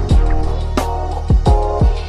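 Background hip-hop-style music with a steady beat: deep kick drums that slide down in pitch, sharp snare-like hits and a melody.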